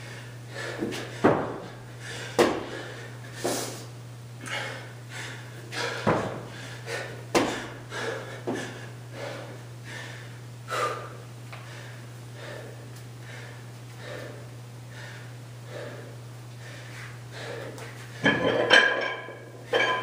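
A person doing burpees on a concrete floor: repeated thuds as hands and body hit the floor, with hard, heavy breathing, about one stroke a second at first and sparser later. A steady low hum runs underneath and stops near the end.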